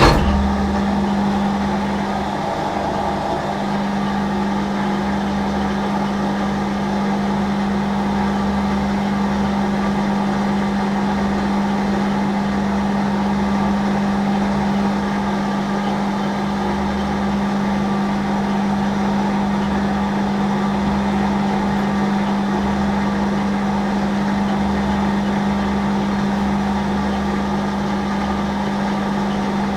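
Hafco Metal Master AL960B metal lathe switching on and running steadily with a constant hum, its spindle geared down to low range at about 160 rpm.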